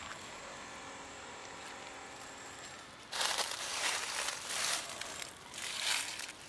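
Rustling and crunching in three loud bursts, starting about three seconds in, as a tray of dry cat food is handled among dry fallen leaves.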